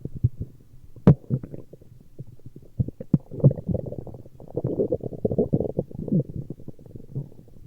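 Human stomach growling: a string of low gurgles and short pops, with one sharp pop about a second in and a longer, denser gurgling stretch through the middle.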